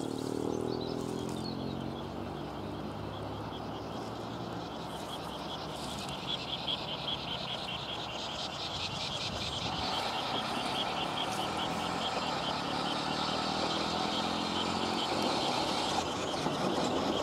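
Open countryside with a rapid, even chirping call from about six seconds in. A low rumble of a distant steam train grows slowly louder toward the end as it approaches.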